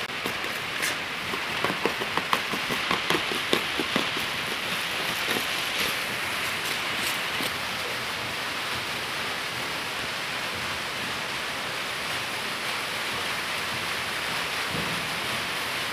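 A steady, even hiss throughout, with a spoon clicking and scraping against a metal pot of cake batter during the first four seconds or so.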